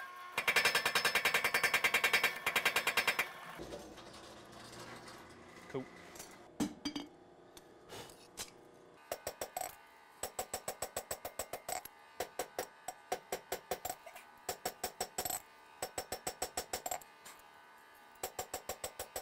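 A power hammer pounds a red-hot steel knife blade in a fast, even burst of blows for about three seconds. After a few clanks of tongs and steel, a hand hammer strikes the blade on the anvil in steady runs of ringing blows, several a second, from about nine seconds on.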